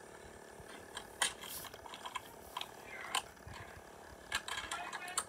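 Irregular sharp mechanical clicks, about six over five seconds, over a faint steady background.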